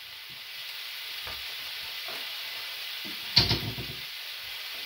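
Onions and sausages sizzling steadily in frying pans, with a short, loud clatter about three and a half seconds in.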